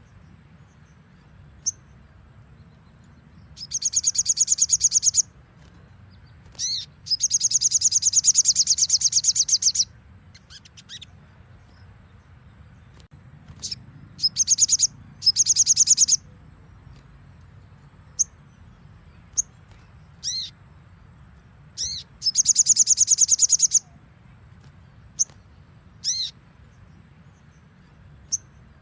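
Sogon sunbird singing high-pitched, rapid trilling phrases ('nembak'), each lasting one to three seconds, with short single sharp call notes between them.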